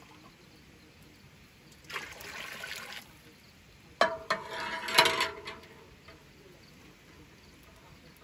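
Water-filled aluminium cooling basin on a pot still being handled: a second of water sloshing about two seconds in, then a sharp metal clank about four seconds in that rings on, with a louder clatter a second later.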